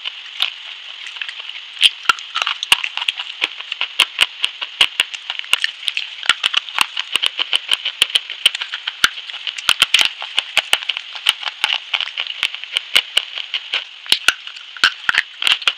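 Crunching and crumbling of a brittle white chalk-like bar, bitten and broken between the fingers: a dense run of sharp cracks, several a second, over a steady high hiss.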